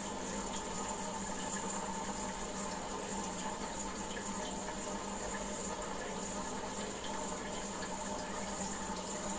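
Steady running and splashing water from a goldfish aquarium's water circulation, with small droplet or bubble sounds and a steady low hum underneath.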